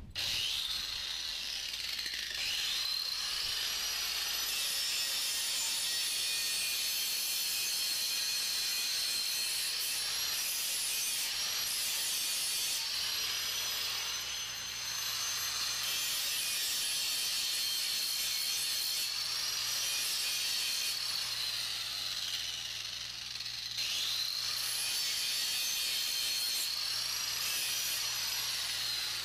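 Electric angle grinder running with a steady high whine, its wheel grinding the edge of a lopper blade held in a vise to sharpen it. The whine sags in pitch and recovers twice, a couple of seconds in and again near the end.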